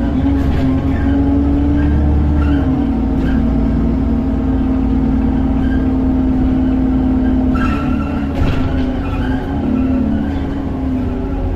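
Alexander Dennis Enviro400 double-decker bus under way: its engine and drivetrain give a loud steady drone over a low rumble. The drone's pitch steps down slightly about two and a half seconds in, then holds, with a brief wavering later on.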